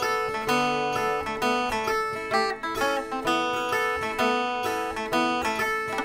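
Background music on acoustic guitar, strummed and picked in a steady rhythm.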